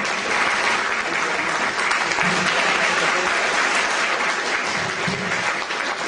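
Audience applauding steadily, easing slightly near the end.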